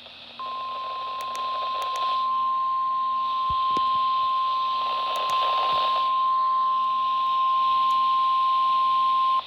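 NOAA Weather Radio warning alarm tone at 1050 Hz: one steady, high beep held for about nine seconds over radio hiss. It grows louder in a few steps and cuts off suddenly near the end. The tone signals that a warning, here a severe thunderstorm warning, is about to be read.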